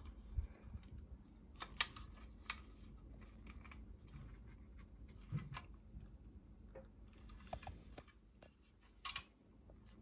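Faint handling of a 2.5-inch SATA SSD in the metal drive bracket of an Intel NUC's lid: a handful of short, sharp clicks and taps at irregular intervals as the drive is pushed to seat in its connector.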